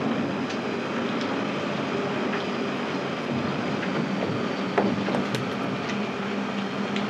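Steady mechanical running noise with a low hum that grows stronger in the second half, and a few scattered clicks and knocks, the sharpest about five seconds in.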